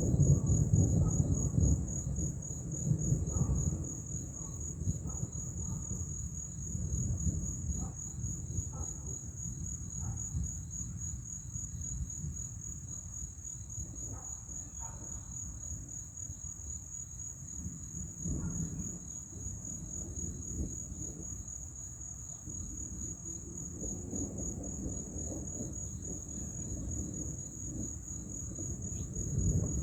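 Night insects trill steadily in a high, evenly pulsing chorus over a low rumble of thunder. The thunder is loudest in the first few seconds and swells again near the end.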